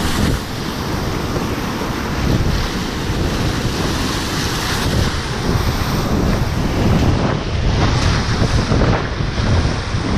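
Whitewater rapids of a river at high water, about 2,500 cfs, rushing loud and steady around a kayak, with wind buffeting the microphone and the kayak paddle's strokes splashing in the current.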